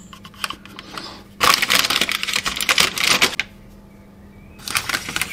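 Felt-tip marker scratching quickly over paper pressed against metal, with the paper rustling under the hands. There is a dense run of scratchy strokes from about a second and a half in, lasting some two seconds, then another short run near the end.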